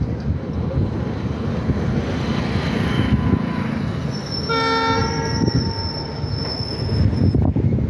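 An Indian Railways train running on the track with a loud, continuous rumble of wheels and cars. About halfway through, the locomotive's air horn sounds one blast of about three seconds, loudest at its start.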